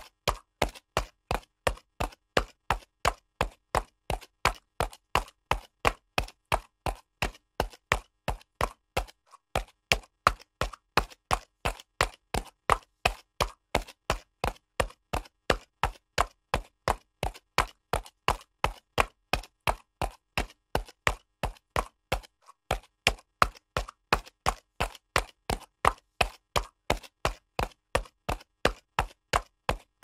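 Horse's hooves trotting on concrete: a steady, even rhythm of sharp hoofbeats, with a brief break about nine seconds in.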